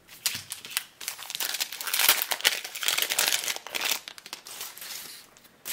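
Foil wrapper of a Star Wars CCG booster pack crinkling as it is torn open and the cards are pulled out: an irregular crackle, loudest about two to three seconds in, then dying down.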